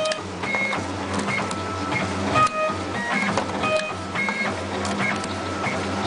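Automatic wire cutting and stripping machine running through its cycle: its motors give short whining tones that jump between pitches as the wire is fed and the blades work, with repeated sharp clicks over a steady low hum.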